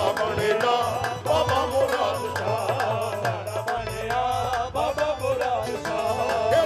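Qawwali music: voices singing long, wavering melodic lines over harmonium and a steady hand-drum beat.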